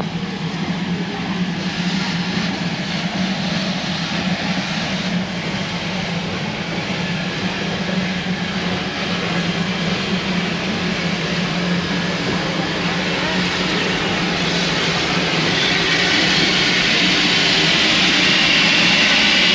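Locomotive running nearby: a steady low drone under a broad hiss that grows louder over the last few seconds.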